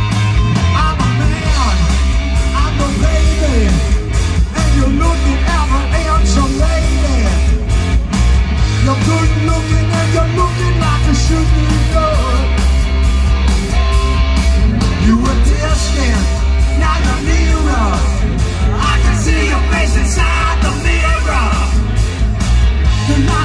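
Live rock band playing loud: distorted electric guitars with bending notes over bass guitar and drums.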